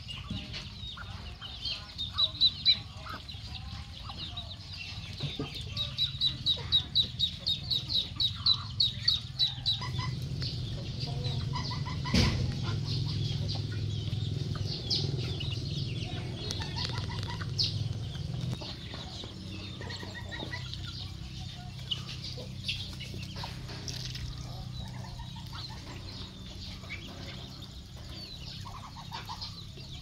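Backyard chickens clucking with chicks peeping, in quick runs of short high calls, while the flock feeds. There is a sharp knock about twelve seconds in.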